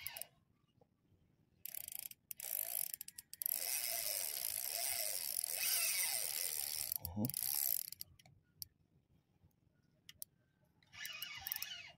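Fishing reel's gears and drag whirring in spurts as line is worked against a hooked fish on a bent rod. A short spurt comes early, a longer run of about four seconds follows in the middle, and a brief spurt comes near the end.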